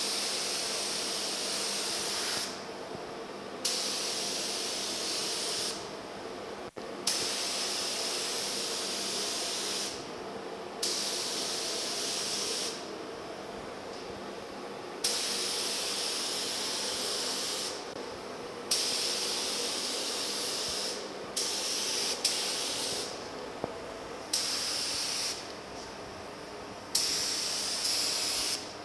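Gravity-feed spray gun spraying clear coat in short passes: a hiss of compressed air and atomised paint that starts and stops with each trigger pull, about ten bursts of one to three seconds with brief pauses between.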